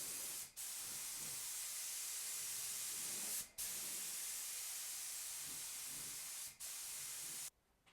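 HVLP spray gun spraying, a steady loud hiss of air, cut off briefly three times as the trigger is let go between passes, and released for good near the end.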